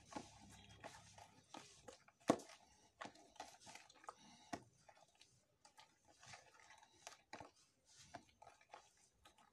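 Hands mixing pancake batter in a plastic bowl: faint, irregular wet squelches and small knocks, with one sharper knock about two seconds in.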